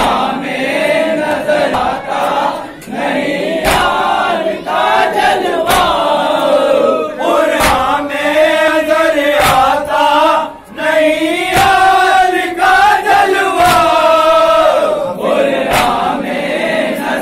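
A group of men chanting a salaam, a Shia elegiac lament, together in unison, with a sharp beat about every two seconds, the timing of mourners striking their chests (matam).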